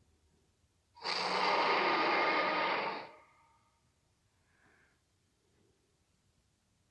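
T-Rex sound effect: one loud, rough rushing blast, like a huge exhale, starting suddenly about a second in and lasting about two seconds before it fades.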